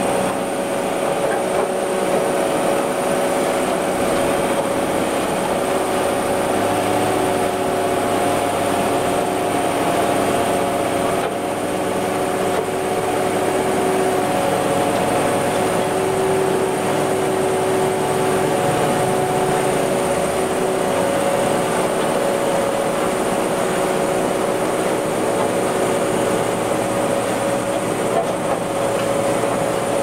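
Komatsu GD505A motor grader's diesel engine running steadily as the grader drives along a gravel road. Its engine note holds several steady tones that shift slightly in pitch a few times.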